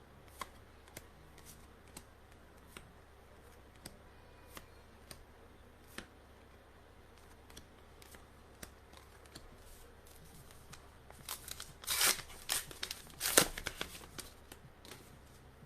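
Faint scattered clicks, then about eleven seconds in a couple of seconds of loud tearing and crinkling as a foil trading-card booster pack is ripped open.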